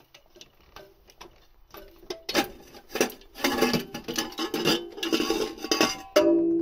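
Metal engine parts clinking and knocking against each other as a pipe section is worked loose and lifted out of the engine bay by hand, the clatter getting busier about two seconds in. Music starts just before the end.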